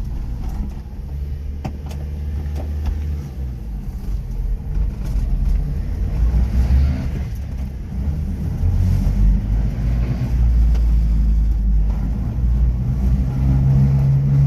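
Subaru Sambar minitruck driving on lugged R1 tractor tires: a low, steady rumbling racket from the tires and wheels along with the small engine, growing louder as it goes.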